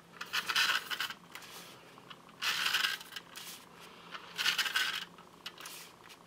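Tombow MONO permanent adhesive tape runner drawn across the back of a card-stock layer in three short strokes about two seconds apart, each a brief scraping hiss as the tape is laid down.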